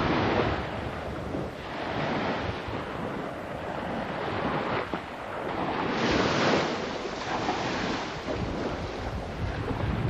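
Wind buffeting the microphone over surf washing on the shore, a rushing noise with a low rumble that swells and eases every couple of seconds.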